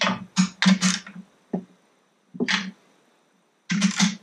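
Socket ratchet wrench clicking in short, uneven bursts as it is worked back and forth to tighten a bolt on an outboard powerhead.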